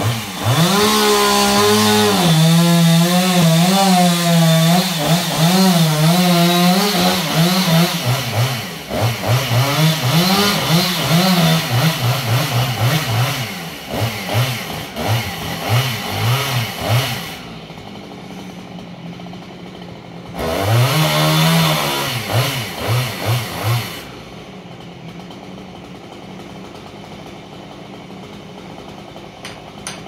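Chainsaw running at high throttle, its pitch rising and falling, then revved in quick short blips. About 17 seconds in it drops back, revs hard again for a few seconds, then settles to a low steady running.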